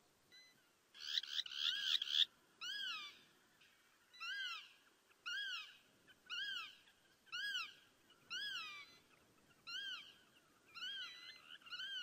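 Eurasian lynx giving repeated meow-like calls. A quick run of overlapping calls comes about a second in, then single calls follow about once a second, each rising and then falling in pitch.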